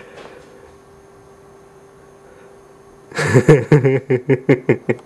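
Quiet room tone with a faint steady hum, then, about three seconds in, a person laughing hard close to the microphone in quick, loud bursts of about five a second.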